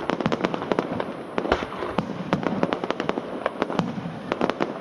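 Fireworks going off in a dense, irregular barrage of sharp bangs and crackles, several a second.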